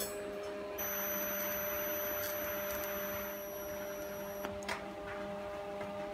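TIG welding arc on a steel cylinder: a steady hiss with a thin high whine, starting about a second in and stopping after about four seconds, over a steady low electrical hum. A sharp click follows shortly after the arc stops.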